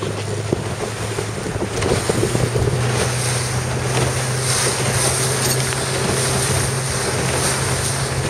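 Wind buffeting the microphone and water rushing past a moving boat, over a steady low motor hum whose pitch steps up about a second and a half in.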